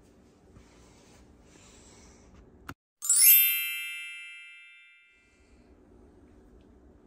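Edited-in transition chime: a quick downward shimmer of bright bell-like tones that rings out and fades over about two seconds, coming in right after a hard cut to dead silence. Before it, only faint kitchen room tone.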